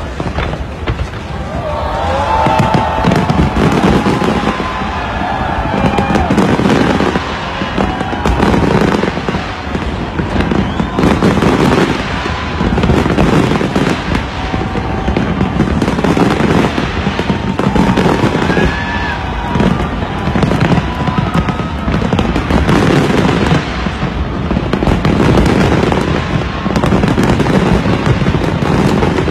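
Fireworks exploding continuously in rapid succession, crackling and booming in waves every couple of seconds, with crowd voices and cheers mixed in.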